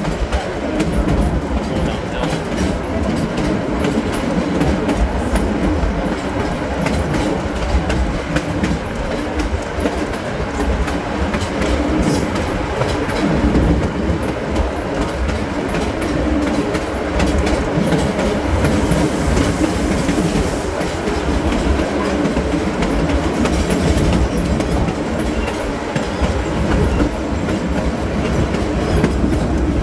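GE 80-ton center-cab switcher's twin Cummins NTA-855 inline-six diesel engines running hard under load, pulling up a grade, heard from the locomotive's end platform. The wheels clatter steadily over the rail joints underneath.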